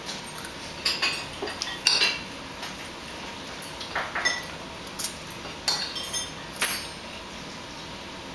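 Eating utensils clinking and scraping against ceramic plates as food is picked from them: a handful of sharp, irregular clinks, the loudest about two seconds in.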